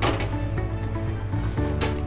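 Background instrumental music with steady sustained notes, with two brief hisses, one at the start and one near the end.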